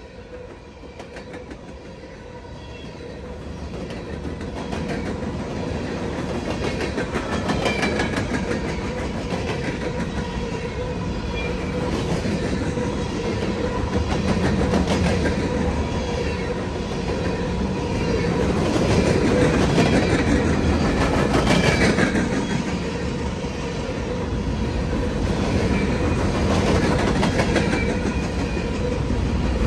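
Train rolling past on the Canadian National line, wheels rumbling and clattering steadily over the rails. The sound builds over the first few seconds as the train comes close, then stays loud.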